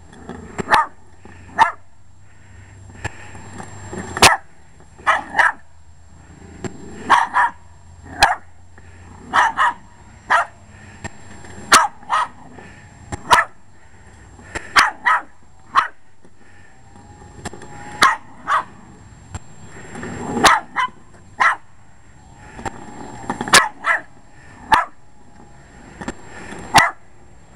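Jack Russell Terrier barking repeatedly in sharp barks, often two in quick succession, about every one to two seconds.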